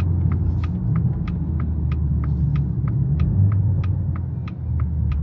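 Turn-signal indicator ticking evenly at about three clicks a second inside a BMW G20 330i's cabin, its tick coded to the Rolls-Royce indicator sound, over the low rumble of the car driving as it slows.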